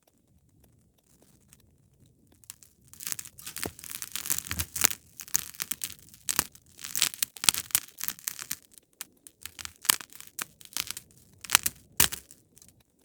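Wood fire in a fireplace crackling and popping. The crackling is faint at first, then turns into a dense run of crackles with several sharp, loud pops from about three seconds in, easing off just before the end.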